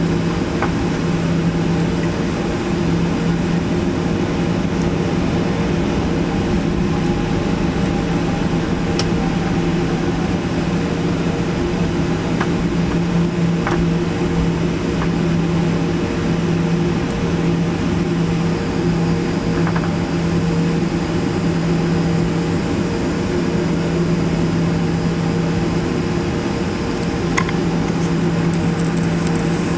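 Boeing 737-800's CFM56 turbofan engines idling during taxi, heard from inside the cabin: a steady hum with a few steady tones and the odd faint tick.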